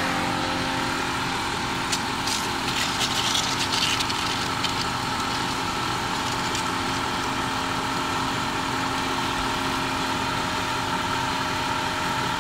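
Mercedes-Benz M111 inline-four engine idling steadily under the open hood, with a few seconds of crackling and hiss starting about two seconds in. The engine is overheating with a blown head gasket.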